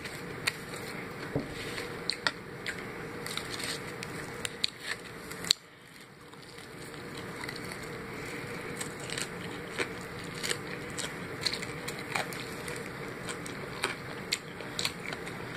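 Close-up eating sounds: chewing and crunching on a piece of extra crispy fried chicken, with mouth smacks and finger-sucking, as many short crackly clicks over a steady background hiss.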